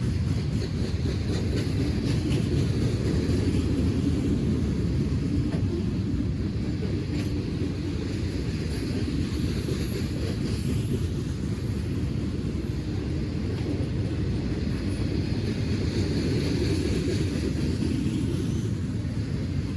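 A train rolling past, making a steady low rumble that holds at an even level throughout.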